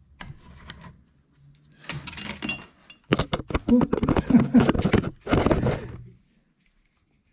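Metal hand tools and a metal part being handled on a workbench: a few sharp clinks, then about three seconds of dense, rapid scraping and rattling that stops suddenly about six seconds in.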